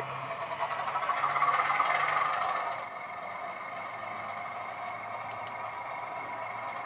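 OO gauge BR Class 31 model locomotive with a TTS DCC sound decoder, its small speaker playing a diesel engine sound as it runs back along the track. The sound is loudest about two seconds in, then settles to a lower, steady level about three seconds in.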